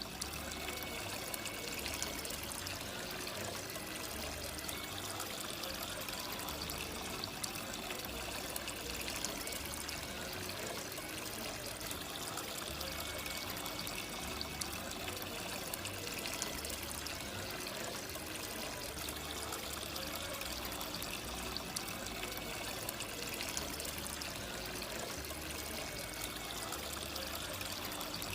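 Water trickling and pouring steadily over a small cement tabletop waterfall fountain, circulated by a mini submersible pump.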